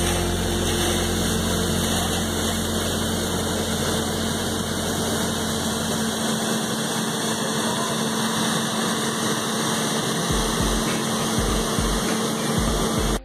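Steady rushing noise of fire hose streams spraying in a fog pattern, over the steady drone of an engine running the pump. The low drone drops away about halfway through.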